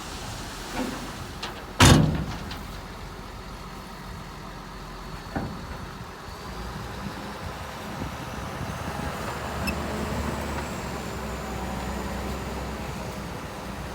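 Heavy earthmoving machinery at work: a diesel engine running low and steady, getting louder in the second half. A loud bang comes about two seconds in, with lighter knocks before and after it.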